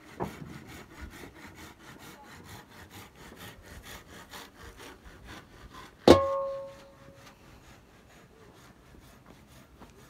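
Faint, steady rhythmic rasping of a hand saw working through a wooden shuttering pole. About six seconds in, a single sharp ringing clang sounds and dies away within about a second.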